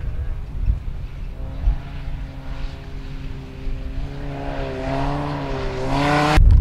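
A 1400cc rallycross car's small four-cylinder engine running hard as it comes through the corner, growing louder as it closes in, its pitch wavering a little with the throttle, over a low rumble of wind on the microphone. The sound cuts off abruptly near the end.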